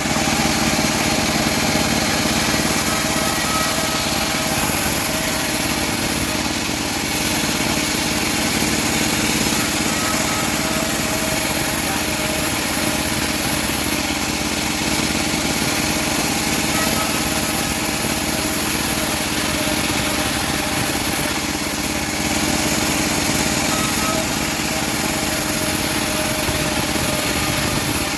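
Engine of a homemade bandsaw sawmill running steadily at a constant pitch.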